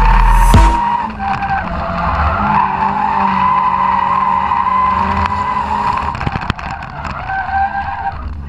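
Drift car heard from inside the cabin, engine running hard while the tyres squeal in long sustained slides. Loud music cuts off about half a second in.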